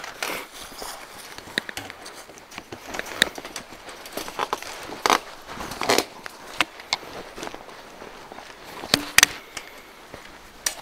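Scattered metal clicks and scrapes of pliers bending wire clips onto a steel T-post to fasten wire fencing, with a few sharper snaps, two of them close together near the end.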